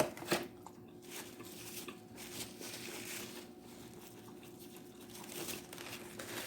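Faint eating sounds: a paper food wrapper crinkling and chewing, with two sharp clicks at the start, over a faint steady hum.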